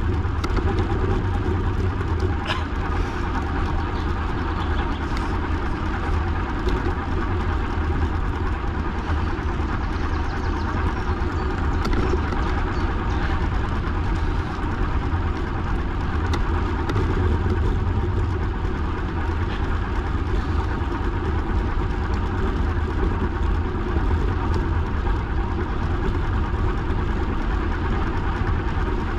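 Steady wind rumble and rolling noise from riding along a path, with a constant hum in the middle pitches and a few faint ticks.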